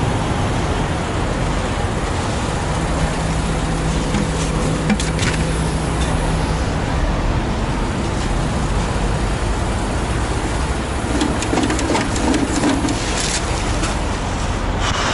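Steady rumble of truck engines and road traffic, with a few light clicks about five seconds in and again between about eleven and thirteen seconds in.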